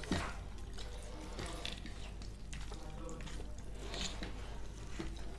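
Wet, close-up eating sounds of chicken curry and rice being chewed, with small clicks and a sharper click near the start.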